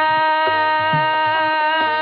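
Bengali bhasan folk music: one long held note over a steady drumbeat of about two beats a second.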